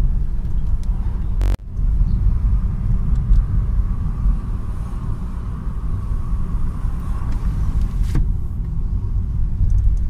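Steady low rumble of a car's engine and tyres on the road, heard from inside the moving car. About one and a half seconds in there is a sharp click with a brief break in the sound, and a second click comes about eight seconds in.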